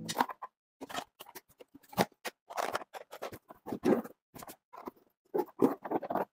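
Plastic lunch containers and school bags being handled and packed: an irregular run of short knocks, clicks, rustles and scrapes.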